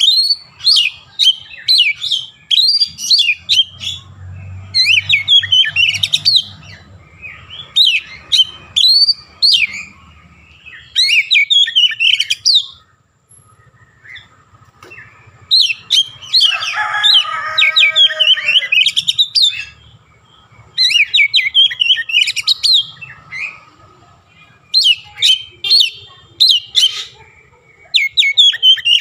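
Oriental magpie-robin singing loudly in phrases of rapid chirps and whistles separated by short pauses, its song laced with mimicked Javan myna calls; a harsher, lower call stands out near the middle.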